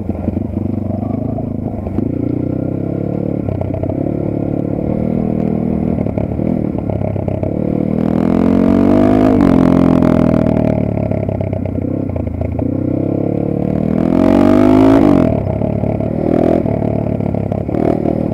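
Geon Dakar GNS300 enduro motorcycle's single-cylinder engine under way, ridden with its exhaust baffle insert removed. The engine note climbs under throttle and drops back twice, about eight seconds in and again about fourteen seconds in.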